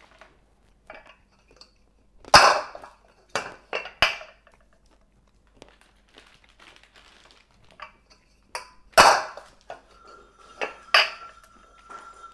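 A metal mini-muffin tin clatters against a stone countertop in several sharp knocks, jarring frozen chocolate cups loose. Near the end a bell rings steadily: a dog's bell, signalling it wants to go outside.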